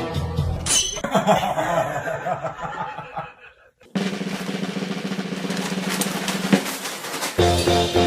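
Music with drums, cutting out briefly about three and a half seconds in and resuming with a plainer pitched tune near the end.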